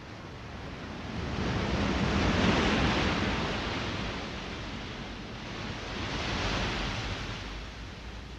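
Rushing water like surf, swelling and fading in two slow waves.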